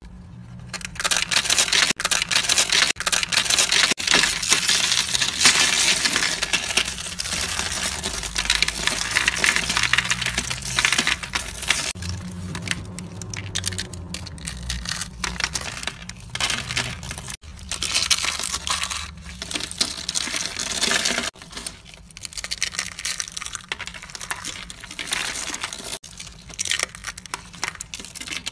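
Brittle rolled soap curls being crushed by hand: dense crackling and crunching with many sharp snaps, starting about a second in and growing patchier in the second half.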